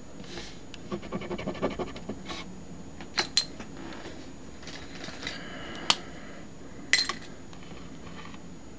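Scratching at a paper scratch-off lottery ticket: a quick run of small scrapes about a second in, then a few sharp clicks spread through the rest.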